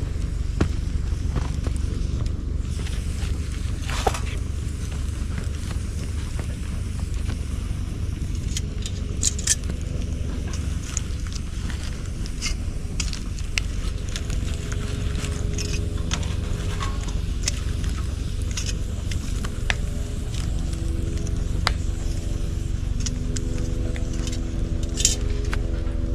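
Bonfire of cut bamboo crackling, with scattered sharp pops over a steady low rumble.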